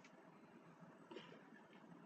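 Near silence: room tone, with a faint click or two.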